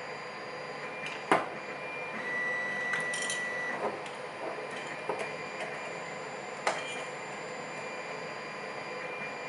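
Small metal parts of a lock being handled and worked apart: a few sharp clicks, the loudest about a second in, and faint scraping in between. A short, steady high tone sounds for about a second and a half near the middle.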